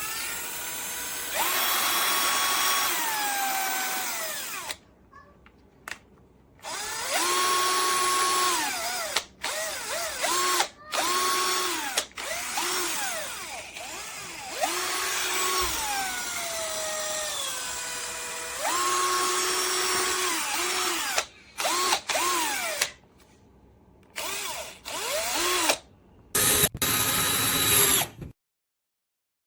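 LEEIKOO 21V cordless combi drill motor running in repeated trigger pulls. Each run is a whine that rises as the motor spins up, holds steady and falls as it winds down. Long runs alternate with several quick short blips, and the sound stops abruptly near the end.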